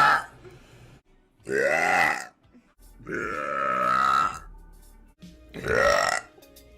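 A woman's loud, drawn-out burps, one after another: the tail of one at the start, then three more. The middle one is the longest, about one and a half seconds.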